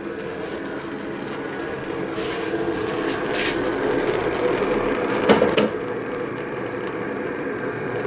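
Mayer & Boch MB-400 stainless steel whistling kettle heating on a lit gas burner: a steady rumble of water nearing the boil, not yet whistling. A metallic clatter comes about five seconds in, after which the rumble is quieter.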